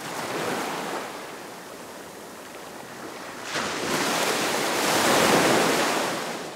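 Ocean waves washing in. A louder surge of surf builds from about halfway, then fades near the end.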